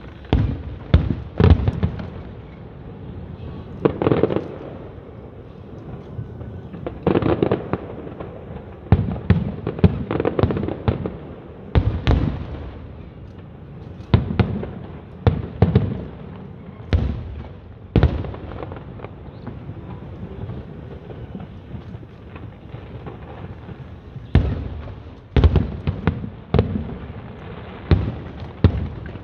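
Fireworks show: aerial shells bursting with sharp bangs that echo, irregularly spaced and sometimes in quick clusters of several.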